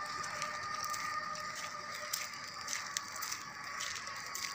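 Quiet outdoor street ambience: a faint, steady, thin high-pitched hum under a low hiss, with scattered soft clicks.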